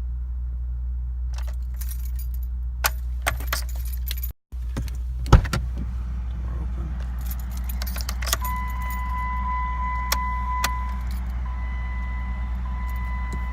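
Keys jangling and clicking at a Jeep's ignition, then a sharp click about five seconds in, with no engine cranking in a no-start. From about eight seconds on, a steady electronic dashboard warning tone sounds over a low cabin hum.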